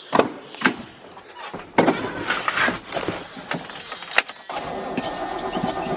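Clicks of a pickup truck's door latch and a thump as the door shuts, then small clicks at the ignition; about four and a half seconds in, the Chevrolet pickup's engine starts and runs steadily.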